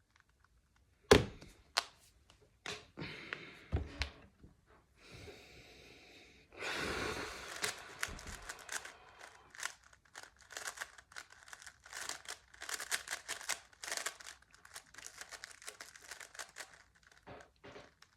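Plastic Rubik's cube being handled and turned, with quick clicking twists that come thick and fast in the second half. A loud knock about a second in.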